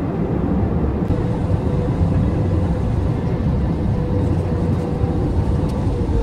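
Jet airliner cabin noise from engines and airflow: a steady low rumble with a faint steady hum in it.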